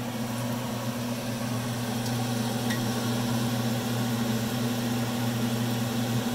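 Battered cod fillets deep-frying in hot oil, a steady sizzle, over a constant low hum.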